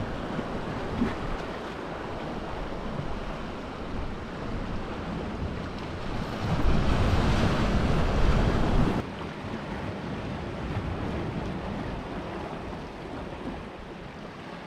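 Ocean swell washing and breaking against shoreline rocks, with wind buffeting the microphone. A louder surge builds in the middle and cuts off suddenly.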